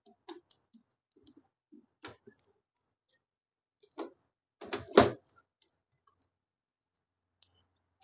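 Scattered light clicks and knocks from handling and fitting a microwave oven's keypad control board into the chassis. The loudest come in a quick cluster about five seconds in.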